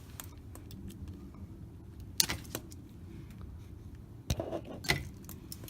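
Wire strippers and a wire being handled while a wire's insulation is stripped: a few sharp metallic clicks, the loudest about two seconds in and a cluster of them around four and a half to five seconds, over a low steady hum.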